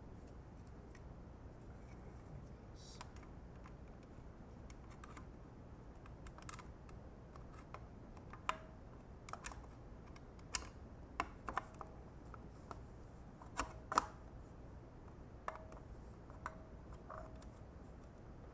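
Scattered light clicks and taps of a plastic cover and small parts being handled and fitted back onto a spin bike frame, sparse at first and busier from about a third of the way in, over a steady low hum.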